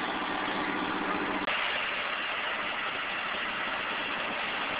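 Engines of emergency vehicles idling steadily, a continuous low hum; its sound changes abruptly about a second and a half in.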